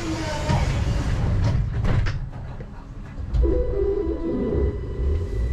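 Rubber-tyred Siemens VAL 208 light-rail car standing still with a low rumble and a few clicks and knocks. About three and a half seconds in, a motor whine starts and begins to rise as the train pulls away.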